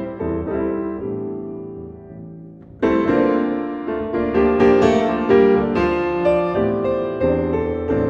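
Solo grand piano. A phrase of chords dies away, then about three seconds in a loud chord opens a fuller, busier passage.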